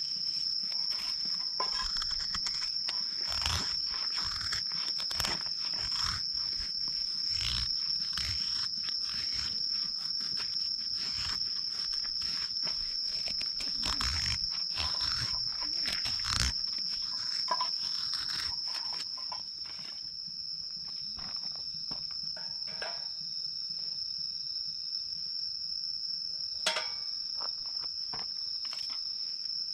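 Crickets trilling on one steady high note. Over the first two-thirds there is a run of irregular knocks and crunching handling noises, and a single sharp click comes near the end.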